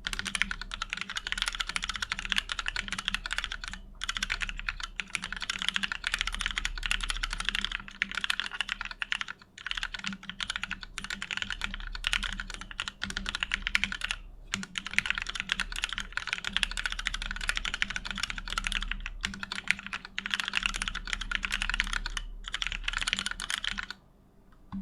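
Fast, continuous typing on a Meridian mechanical keyboard with lubed vintage Cherry MX Black linear switches, a POM plate and PBT keycaps. The typing breaks for a moment every few seconds and stops about a second before the end. A faint low hum runs underneath.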